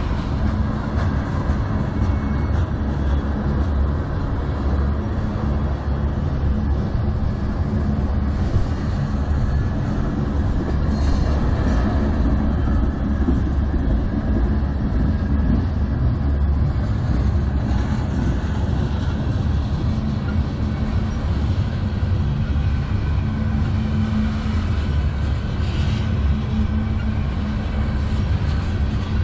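Tank cars of a freight train rolling past close by: a steady heavy rumble and clatter of steel wheels on rail.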